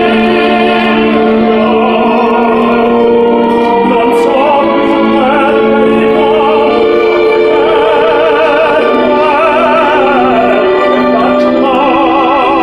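A man singing opera, a solo trained voice with wide vibrato on long held notes.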